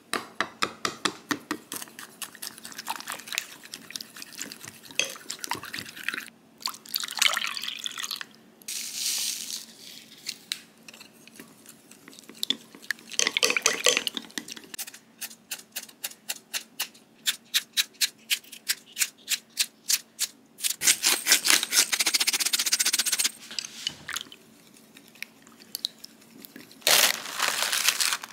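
Kitchen prep sounds: runs of quick, evenly spaced taps, about four a second, broken by short bursts of running water.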